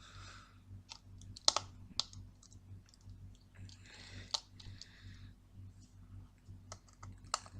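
Faint, scattered metallic clicks and soft scraping from a precision screwdriver turning out the small screws that hold a hard drive's circuit board, over a steady low hum.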